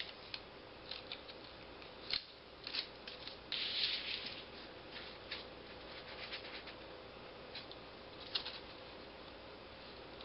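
Heavy paper being handled and folded on a wooden table: scattered crinkles and rustles, with a longer rustle about three and a half seconds in.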